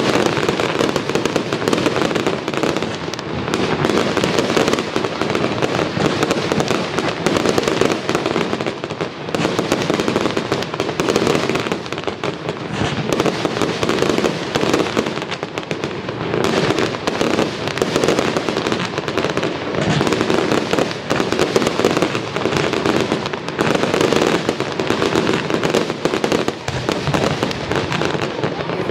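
Fireworks display: a dense, continuous barrage of bangs and crackling shells going off with no pause.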